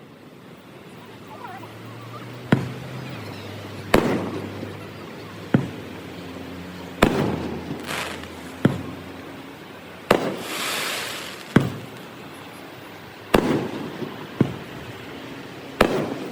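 Fireworks display: aerial shells bursting with sharp booms about every one to two seconds, each with a short echoing tail, and a hissing crackle after one burst near the middle.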